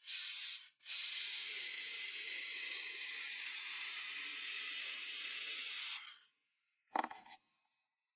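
A steady, loud hiss, broken off briefly just before one second and stopping about six seconds in, followed by a single short knock near seven seconds.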